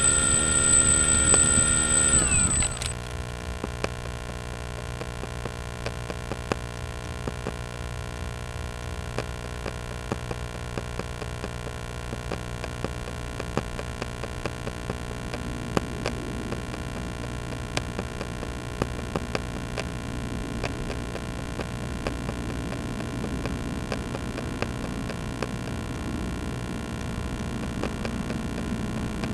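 A small motor's high whine, several steady tones at once, sags slightly in pitch and cuts off about two and a half seconds in. A steady quieter hum follows, with scattered faint clicks.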